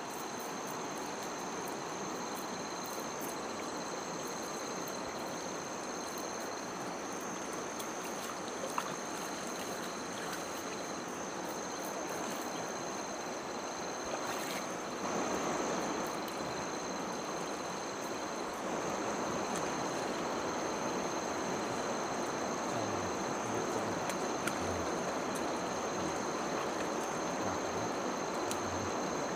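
Steady rush of a fast-flowing river, with a continuous high insect drone over it; the rushing gets a little louder about two-thirds of the way through.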